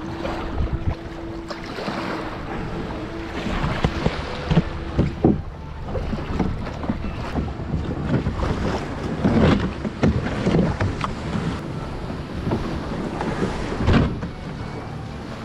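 Wind buffeting the microphone over small waves lapping at the shore, with irregular knocks and thumps as a kayak is run up onto the sand and handled. A steady hum runs through the first few seconds.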